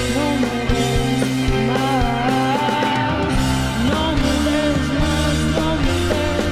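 Rock music soundtrack with a singing voice.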